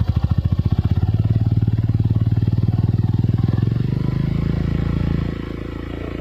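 Yamaha SZ single-cylinder motorcycle engine running through an aftermarket Vmax-style exhaust with a silencer insert, held at about 2,000 to 3,000 RPM. The firing pulses smooth into a steadier tone after about a second, and near the end the revs drop back and the sound gets quieter.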